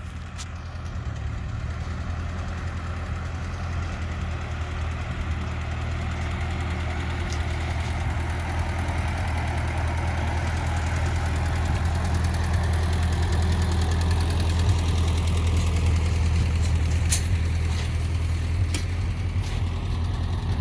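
An engine idling steadily, with a few sharp clicks near the end.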